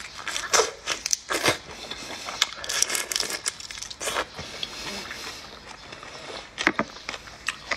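Shell of a large prawn crackling and tearing as it is peeled apart by hand, in irregular crisp snaps, with close-up sucking and chewing at the mouth.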